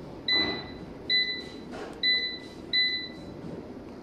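Crown Xavier 5.6 kW hybrid solar inverter's touch-button control panel beeping four times as its keys are pressed, each beep short and steady, while the settings menu is stepped through.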